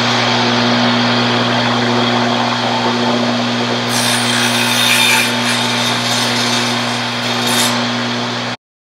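Table saw running with a steady motor hum. From about four seconds in, the blade cuts into a thin wooden bar, adding a harsher, higher cutting noise for roughly four seconds as it saws a slot for a comb tooth. The sound cuts off suddenly near the end.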